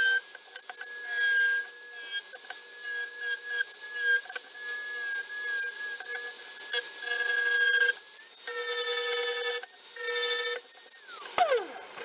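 Dremel rotary tool with a sanding drum running at high speed, a steady whine as it sands and rounds over the edges of small pine intarsia pieces. Near the end it is switched off and winds down with a falling whine.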